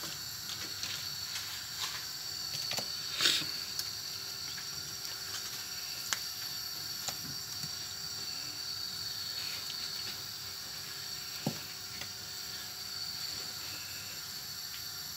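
Serving utensils clicking and tapping against a foil-lined baking tray and a glass baking dish while grilled chicken pieces are lifted across, a few separate knocks with the sharpest about three seconds in, over a steady hiss.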